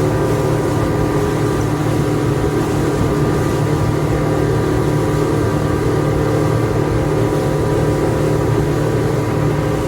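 Boat motor running steadily at constant speed, a loud even hum with rushing noise over it.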